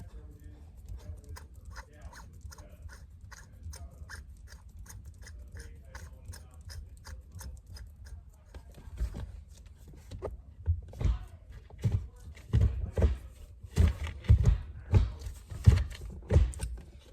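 Handling noise from fitting a shift knob onto a car's gear shifter. It starts as a run of even clicks, about three a second, and turns to louder, irregular knocks and thuds in the second half.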